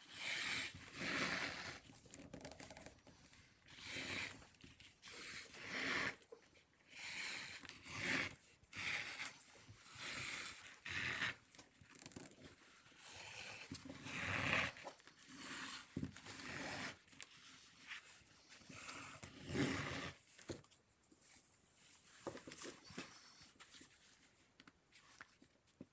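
A thin lace drawn through a leather handle wrap and pulled tight, stitch after stitch: a scratchy rasp of lace rubbing on leather with each pull, every second or two, sparser near the end.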